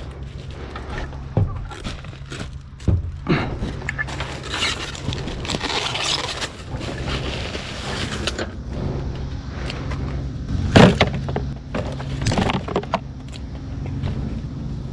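Scrap metal being handled and dropped: a run of clanks, scrapes and jangles, busiest in the first half, with one loud clunk about eleven seconds in, over a steady low hum.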